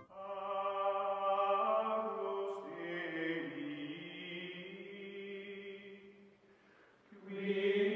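Chant-like choral music with long held notes, fading away about six seconds in and swelling back up near the end.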